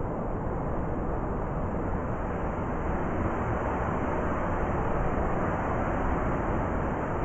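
Blizzard wind blowing as a steady, deep rushing noise, swelling a little midway through.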